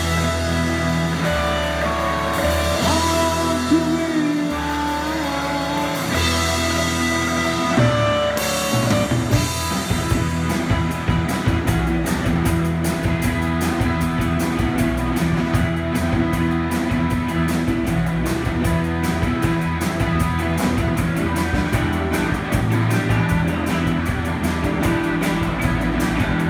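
A live rock band playing an instrumental passage on electric guitars and drum kit. Sustained, bending guitar notes give way, about ten seconds in, to a fast steady drum beat under the guitars.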